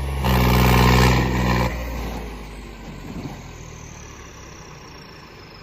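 Tractor diesel engine running hard at steady high revs, then dropping away sharply about a second and a half in, leaving a much quieter engine sound.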